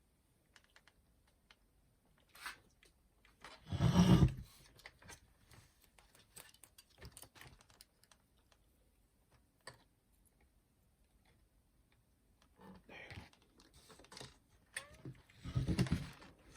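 Light clicks and taps from handling small plastic and metal parts of a boombox's cassette deck, with two louder knocks and rustles, one about four seconds in and one near the end.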